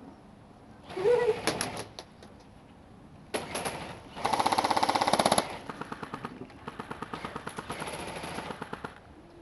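Airsoft electric rifles firing full-auto bursts, a rapid even clatter of shots. Several bursts come in turn; the loudest lasts about a second near the middle, and quieter, more distant bursts follow.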